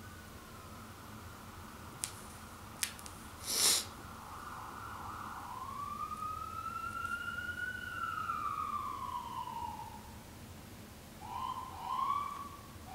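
Emergency-vehicle siren wailing, its pitch slowly rising and falling, then switching near the end to short, choppy yelps. A couple of sharp clicks and a brief loud burst of noise come about two to four seconds in.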